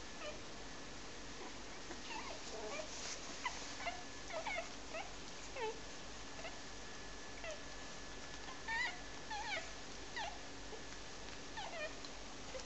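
Clumber spaniel puppies whining and squealing: many short, high-pitched squeaks that bend up and down in pitch, coming in scattered clusters.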